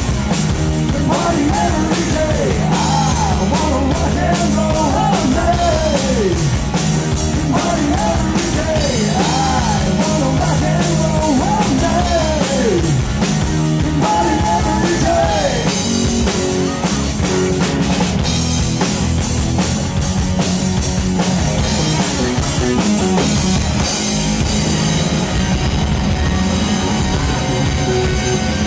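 Live rock band playing: a Stratocaster-style electric guitar plays a lead line full of bending notes over a steady drum kit beat. The bends fill roughly the first half, and the rest is fuller band playing with more cymbal.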